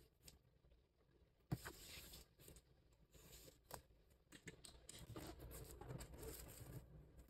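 Faint scraping of a small folding knife slitting the plastic shrink-wrap on a phone box, with a sharp tap about a second and a half in. Later the wrapped box is handled and the plastic film crinkles.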